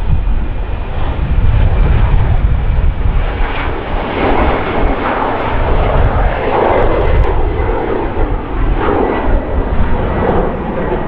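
Twin-engine Embraer E-Jet airliner taking off, its jet engines at takeoff thrust making a loud, rough roar over a low rumble. The crackling roar swells through the middle as the jet lifts off and climbs away.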